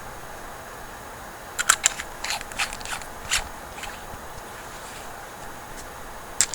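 Small metal parts of a rebuildable vape tank clicking and scraping as they are handled and fitted together: a quick run of sharp clicks from about a second and a half in, a pause, then more clicks at the very end, over a faint steady hiss.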